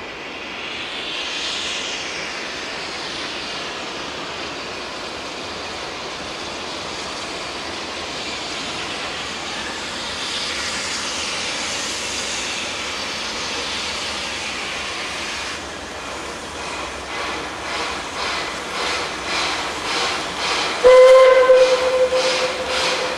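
Narrow-gauge steam locomotive approaching: a steady hiss, then the exhaust beat sets in, about three chuffs every two seconds, growing louder. Near the end the steam whistle blows a loud, steady blast.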